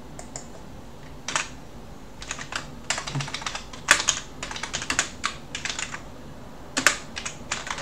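Computer keyboard being typed on: irregular keystroke clicks starting about a second in, coming in quick runs with short pauses, as a shell command is entered.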